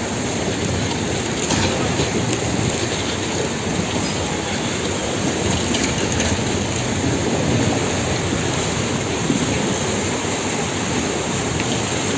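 Steady, loud rushing and churning of harbour water pulled along by a tsunami surge current after an earthquake.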